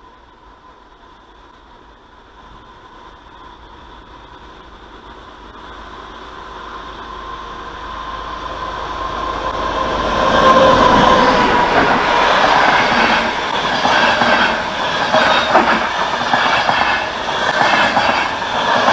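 Train approaching along the track, growing steadily louder for about ten seconds, then running close by with a rapid clatter of wheels over the rail joints.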